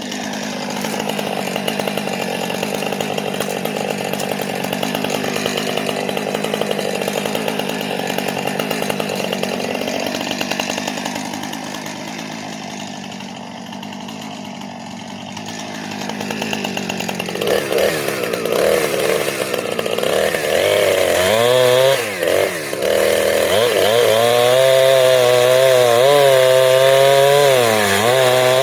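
Two-stroke chainsaw running and cutting into a dead ash tree. About halfway through the engine note grows louder and clearer, its pitch wavering up and down under load in the cut.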